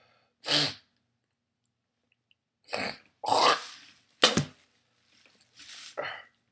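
A man coughing and clearing his throat in about five short bursts, the loudest a sharp cough just past the middle. It is a reaction to the burning in his throat from a superhot Trinidad Moruga Scorpion chili pepper.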